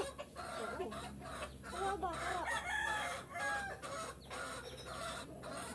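Chickens clucking and a rooster crowing, a string of short, bending calls.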